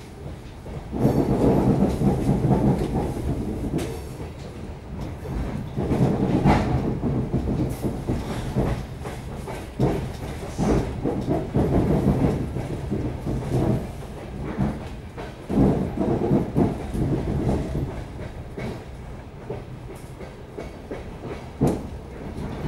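Suburban train heard from inside a carriage as it rolls out of a station: a steady running rumble, with stretches of loud wheel clatter where the wheels cross rail joints and points, and a few sharp knocks.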